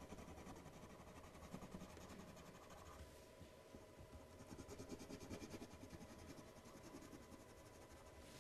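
Faint scratching of a coloured pencil shading on paper, over near-silent room tone, a little stronger about halfway through.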